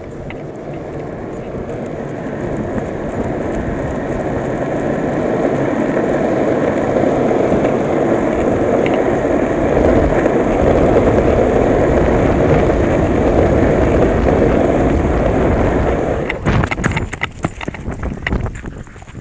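Longboard wheels rolling on rough asphalt, a steady rolling noise that grows louder as the board picks up speed over the first several seconds. About three seconds before the end it stops, giving way to irregular scuffs and footsteps on the road.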